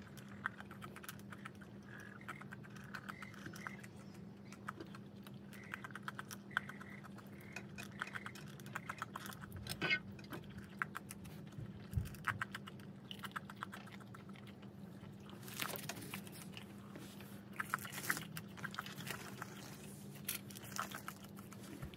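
Raccoons eating from metal pots: an irregular run of small clicks and crunches from chewing and from teeth and claws knocking on the metal, over a steady low hum.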